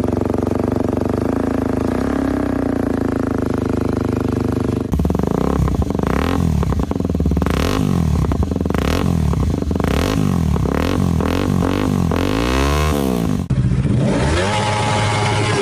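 Kawasaki Ninja motorcycle engine running at a steady speed. After an abrupt cut about five seconds in, it is revved in quick repeated throttle blips, each rising and falling in pitch, with one longer, higher rev near the end. Another abrupt cut follows, to more revving.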